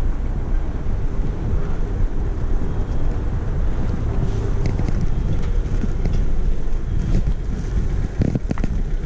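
Wind rushing over the camera microphone as a bicycle rolls over cobblestones, a steady low rumble with a couple of short knocks near the end.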